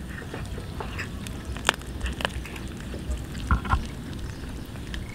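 A cat chewing a raw fish: irregular short, wet crunches and smacks of its jaws on the flesh and bones, a few louder ones near the middle.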